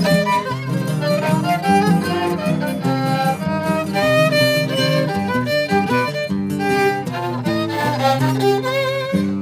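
Instrumental music with a violin carrying the melody over a lower string accompaniment.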